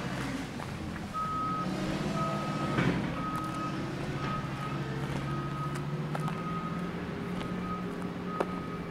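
A vehicle's reversing alarm beeping at one steady pitch, about two beeps a second, starting about a second in, over a running engine.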